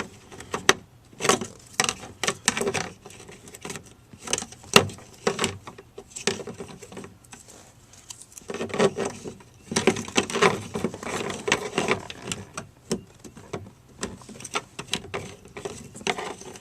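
Irregular clicks, taps and rattles of small speaker-mounting parts, screws and adapter brackets being handled and fitted, in busy spurts with short pauses.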